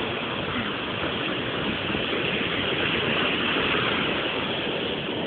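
Steady rush of small waves breaking on a sandy beach, mixed with wind on the microphone.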